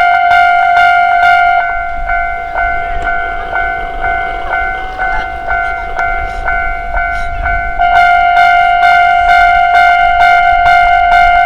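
Japanese level-crossing warning bell ringing its steady electronic "kan-kan" at about three strikes a second. From about 2 s to 8 s the bell is partly drowned out and quieter while an Iyotetsu Takahama Line electric train passes with a low rumble; the bell then comes back at full strength.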